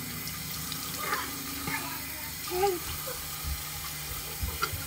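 Bathroom sink tap running steadily into the basin.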